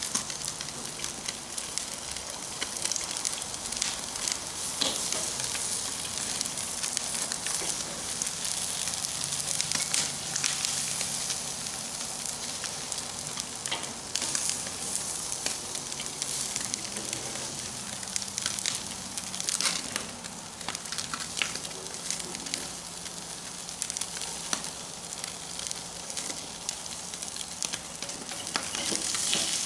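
Trout sizzling on a charcoal grill over glowing mesquite coals: a steady hiss dotted with frequent pops and crackles.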